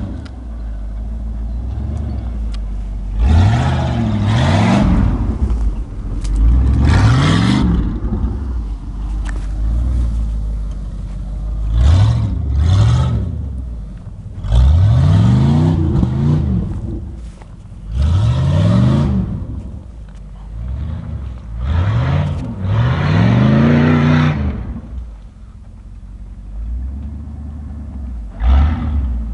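Full-size Ford Bronco's engine revving hard again and again as the truck drives through deep mud in four-wheel drive, each rev rising and then falling in pitch. A hiss of spinning tyres churning mud and grass comes with the bigger revs.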